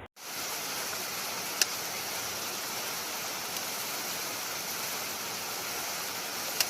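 Steady rushing of running water, like a stream, with one short click about one and a half seconds in.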